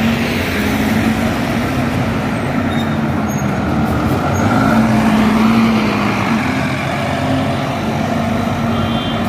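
Volvo B9TL diesel double-decker bus engine running as the bus drives along the road, over general street traffic noise. It gets a little louder about halfway through.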